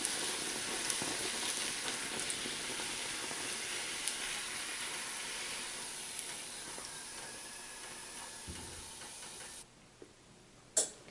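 Bhatura deep-frying in hot oil, a steady sizzle that slowly fades and cuts off suddenly a little before ten seconds in. A single click follows near the end.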